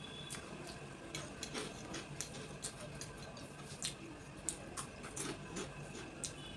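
Close-up eating sounds: irregular clicks and smacks of chewing, with no regular rhythm.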